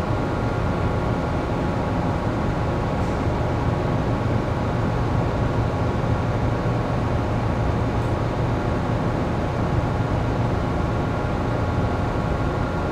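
Steady hum of a moored passenger ship's onboard machinery and ventilation: a low drone with a few thin, steady high tones over it.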